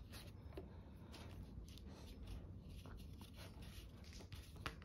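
Faint scratching and light taps of Sculpey polymer clay being sculpted by hand, with a sharper click near the end.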